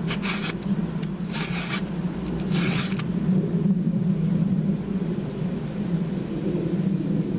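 A 4.8 mm round chainsaw file in a filing guide rasping across a semi-chisel cutter of a .325 pitch chain: three short strokes in the first three seconds, then the filing stops. The strokes are taking the last of the damage off the cutter edge to bring it back to sharp. A steady low drone runs underneath.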